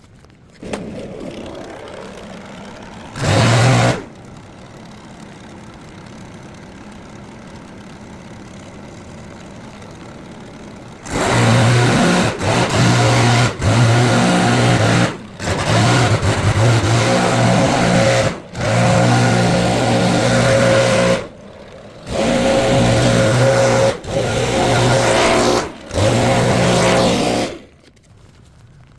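Small petrol engine of a lawn tool starting about a second in and idling, with one short rev, then run hard in repeated bursts of a few seconds with brief drops back toward idle.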